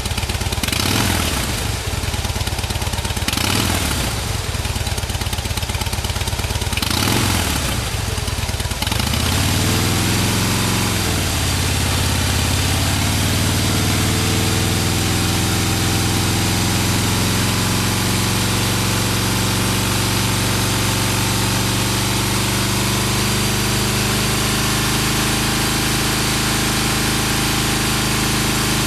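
Harley-Davidson Heritage Softail V-twin on its stock exhaust, the baffles drilled with a 1/2-inch hole. The throttle is blipped several short times, then once more in a longer rise and fall, and the engine settles into a steady idle.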